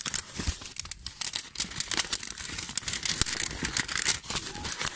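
Clear plastic packaging crinkling and rustling as it is handled, with dense irregular crackles.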